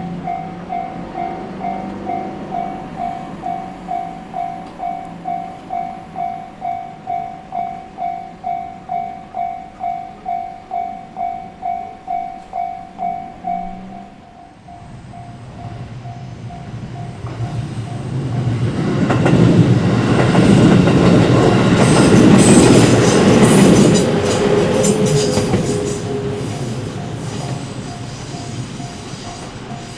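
Japanese level-crossing warning bell ringing at about two dings a second, dropping to a fainter ring about 14 seconds in. A JR Minobu Line train then passes over the crossing, its wheels clicking over the rail joints, loudest from about 19 to 24 seconds in and fading away near the end.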